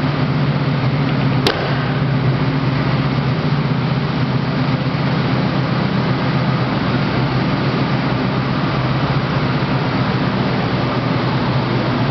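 1979 Pontiac Trans Am V8 engine idling steadily at an even pitch, with one sharp click about a second and a half in.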